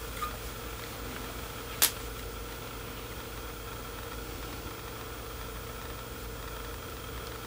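Steady low background hum with a few faint high steady tones over it, and one sharp click about two seconds in.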